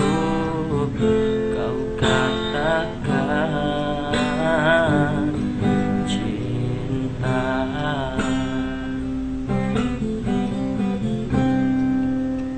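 Acoustic guitar strumming with a man singing over it, his held notes wavering with vibrato.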